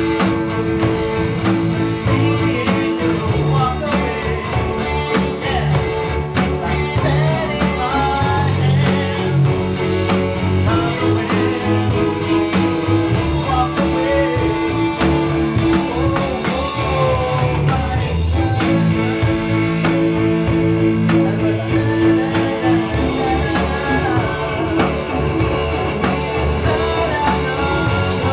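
A small band jamming: a pink Hello Kitty Stratocaster electric guitar, an electric bass and an electronic drum kit play together over a steady drum beat, with held guitar notes and bending melodic lines.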